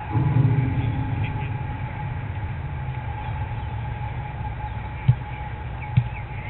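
Steady low outdoor rumble that swells in the first second with a drone falling in pitch, like something passing, then two short dull thumps about a second apart near the end.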